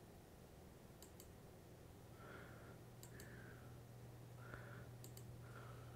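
Near silence with a low steady hum and about three faint computer mouse clicks spaced roughly two seconds apart.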